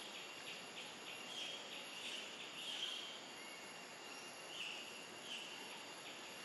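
Forest insects buzzing in a steady high drone, with short high chirps coming on and off every half second to a second.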